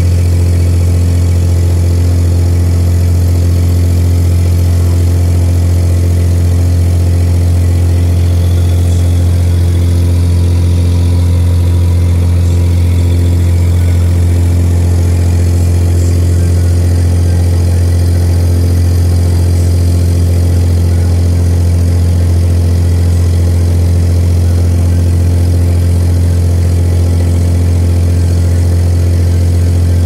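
A loud, steady low hum with a stack of higher overtones, unchanging in pitch and level throughout.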